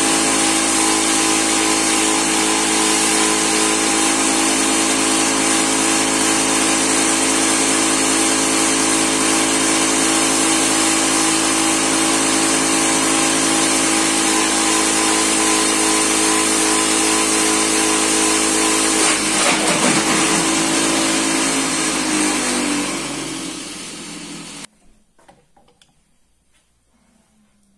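A motor or machine running steadily with a loud hum. About 22 seconds in it winds down, its pitch falling, then cuts off suddenly to near silence.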